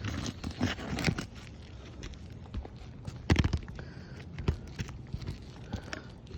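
Hands and tools working on roof shingles: scattered scrapes, crackles and knocks, the loudest knock about three seconds in.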